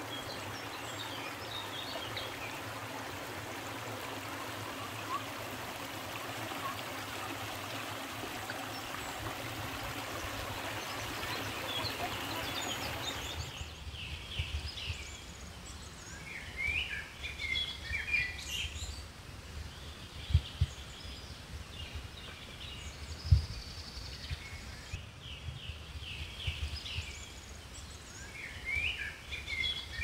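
A small forest stream running over mossy rocks, a steady rushing hiss. About halfway through it gives way to birds chirping and singing, with two sharp low thumps a few seconds apart.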